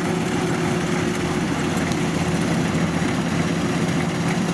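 Kubota DC93 rice combine harvester's diesel engine running at a steady speed, an even low drone with a constant hum and no change in pitch.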